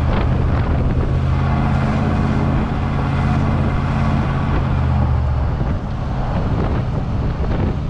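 Inside the cabin of a 1995 Chevy Tahoe cruising at about 35–40 mph, with a steady engine hum under road and tyre noise. About six seconds in the engine note eases off as the revs drop.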